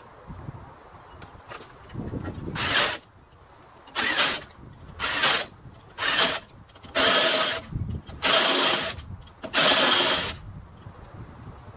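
A handheld power tool runs a wheel's lug nuts in seven short bursts, the later ones longer.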